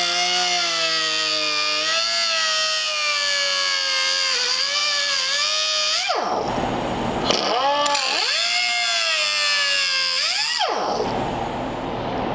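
Eastwood slim reversible air cutoff tool whining as its wheel cuts through the rivet holding the fork on a Ford Model A transmission shaft, its pitch sagging and recovering as the wheel bites. It stops about six seconds in, spins up again a second and a half later, and stops near the end, leaving a steady rushing noise.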